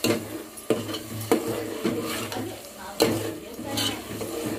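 A spoon stirring onion purée as it fries and sizzles in hot oil in a cooking pan, knocking against the pan about once or twice a second.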